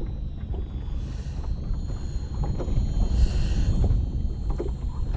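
Steady low rumble of wind on the microphone aboard a small boat, with light ticks and clicks from hands threading a soft-plastic grub onto a jig. A brief hiss comes about three seconds in.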